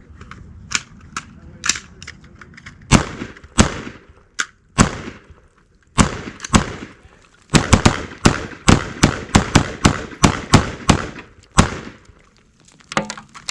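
AR-15 rifles firing semi-automatic shots: a few scattered single shots first, then a fast string of about a dozen shots, roughly three a second, stopping about two seconds before the end.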